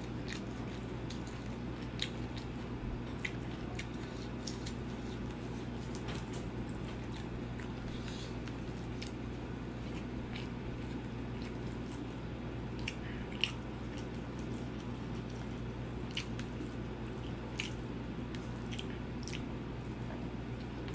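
Close-up eating sounds of rice and pork curry eaten by hand: wet chewing and squishing, with many short clicks and smacks. A steady low hum runs underneath.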